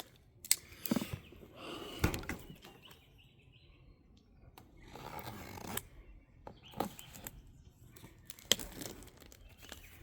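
Handling noise: rustling and sliding with scattered sharp clicks and knocks, typical of a box and packaging being moved about.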